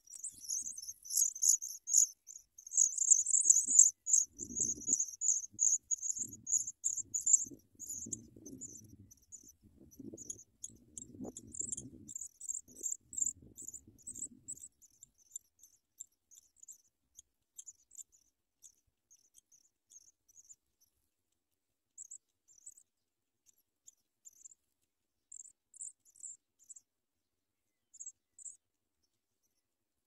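Songbird nestlings in a grass ground nest giving thin, very high begging peeps in a fast, dense run, thinning after about eight seconds into scattered short bursts that die away near the end. Soft rustles and thumps in the grass from about four to fifteen seconds in.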